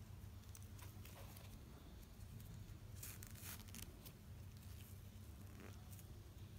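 Faint rustling and light scraping as a crochet cord is handled and drawn through a metal bag-handle ring, with a brief louder rustle about three seconds in, over a low steady hum.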